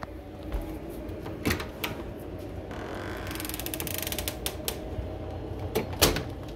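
An exterior door being opened to let a cat out: scattered latch clicks and knocks, a creak in the middle, and a sharper knock near the end.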